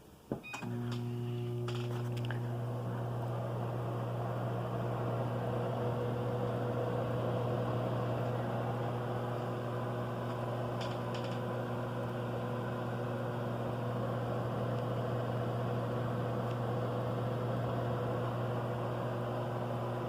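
Whirlpool 1800-watt microwave oven switching on with a click and running steadily: a low electrical hum with a fan's whir over it.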